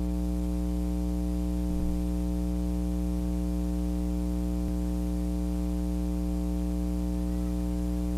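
Steady electrical mains hum and buzz, a low hum with a ladder of evenly spaced overtones, over a constant hiss.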